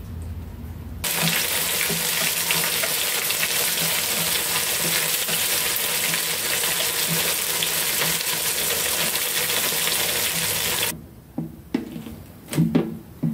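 Pieces of pig lung sizzling loudly in hot oil in a non-stick pan, stirred with a wooden spatula. The sizzle cuts off suddenly about eleven seconds in, and a few short wet squelches follow as a hand presses a raw, wet pig lung.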